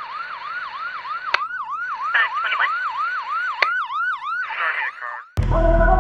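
Emergency-vehicle siren on a fast yelp, a quick rising sweep about four times a second, with a couple of sharp hits along the way. It cuts off suddenly about five seconds in, and music with a heavy bass starts.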